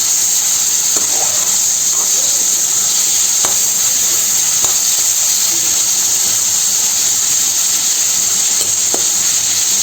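Crushed shallots, garlic and fennel sizzling steadily in hot sesame oil while being stirred in the pan, with a few light clicks and knocks of the stirring.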